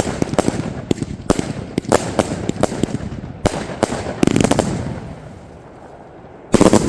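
Consumer F2 firework battery compound firing: a fast string of sharp bangs and crackles for the first four seconds or so, thinning into a short lull, then one loud report near the end.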